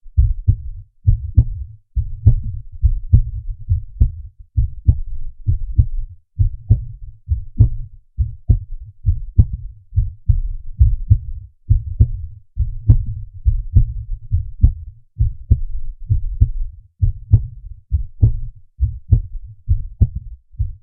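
Human heartbeat from a real heart, enhanced so it is easy to hear: deep double thumps repeating steadily about once a second.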